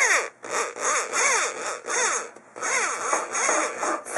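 Hand saw cutting through wood, worked in quick back-and-forth strokes with a few short pauses; each stroke rises and falls in pitch.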